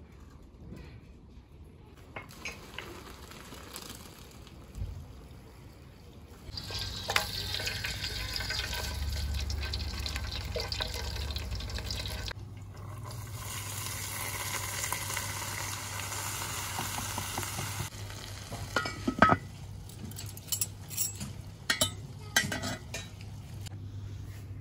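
Hot oil sizzling in a cooking pot as flatbread is laid in, in two stretches of steady hiss. Near the end come a few sharp knocks and clatters.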